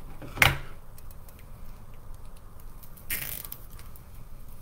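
Craft-table handling sounds: a sharp knock about half a second in as a pair of cutters is picked up off the table, then a short scratchy rustle of the plastic deco mesh a little past three seconds, with faint light clicks between.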